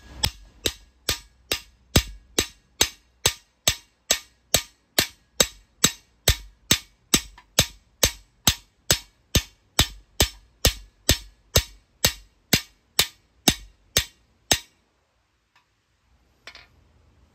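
Hammer blows on the end of a cam bearing installer's rod, driving a new cam bearing into the cam bore of a Ford 302 small-block. Steady, rapid strikes, about two and a half a second, that stop about two-thirds of the way through once the bearing is seated.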